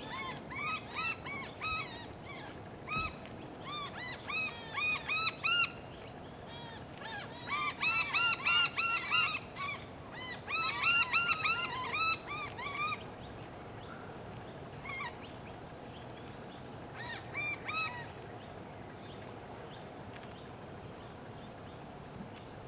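A bird calling in quick runs of short, rising-and-falling notes. The runs come in several bursts that are loudest in the middle and stop about eighteen seconds in. Under them runs a steady high hiss that ends near twenty seconds.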